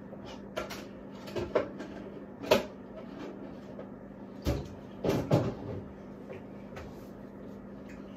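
Kitchen clatter: a series of short knocks and clunks from doors and containers being handled, the loudest about two and a half seconds in and a cluster around five seconds in. A steady low hum runs underneath.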